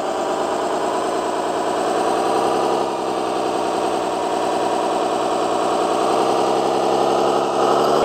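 Electric 1/14-scale Stahl/Liebherr 742 RC hydraulic bulldozer running as it pushes a pile of dirt: a steady mechanical hum-whine from its battery-driven hydraulic pump and drive.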